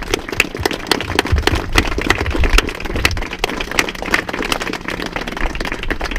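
Wedding guests applauding: many hands clapping in a dense, irregular patter.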